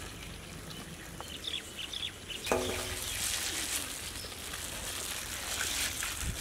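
Birds chirping over faint sloshing as a gloved hand mixes water into flour in a steel bowl, with a short pitched call about two and a half seconds in.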